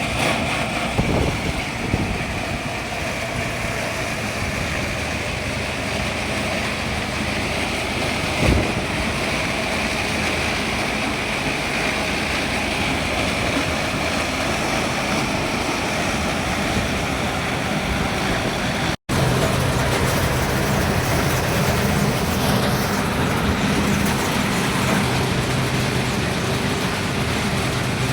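Corn harvester's engine and picking machinery running steadily. The sound drops out for an instant a little over two-thirds of the way through, and after that a steadier low engine hum comes through.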